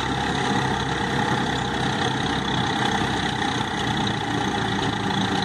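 Swaraj 744 tractor's diesel engine running steadily while it drives a straw reaper chopping wheat stubble into straw, with the reaper's machinery running alongside.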